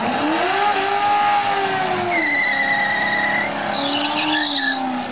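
C6 Chevrolet Corvette's V8 revving in a burnout. The engine climbs and holds, then eases off, while the spinning rear tires give a high steady squeal. A second rev near the end brings more short squeals.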